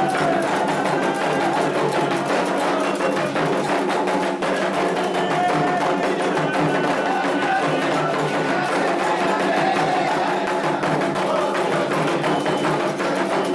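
Candomblé ritual music: atabaque hand drums and an iron bell playing the rum toque for Oxumaré in a steady, dense rhythm, with voices singing over it.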